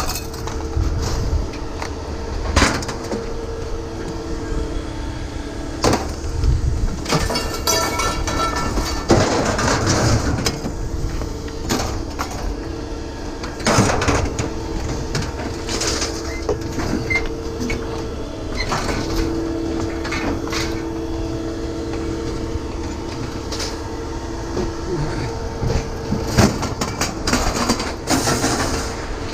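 Scrap metal pieces clanking and knocking, with sharp hits scattered throughout, over a steady machine hum that fades in and out.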